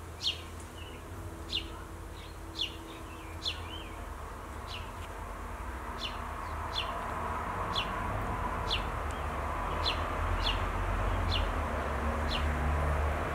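House sparrows chirping: short, high, falling chirps repeated about once or twice a second. Underneath is a low background rumble that grows louder toward the end.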